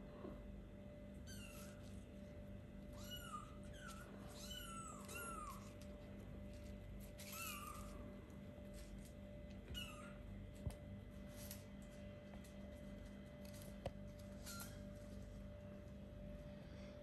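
Four-week-old kittens mewing in short, high, arching mews, several in quick succession in the first six seconds, then one at about seven and a half seconds and a few fainter ones later. A couple of small clicks are heard in the second half.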